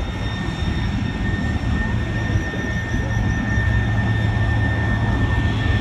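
A jet aircraft's turbine engine running close by on the ground, a steady rushing noise with a low rumble under a constant high-pitched whine.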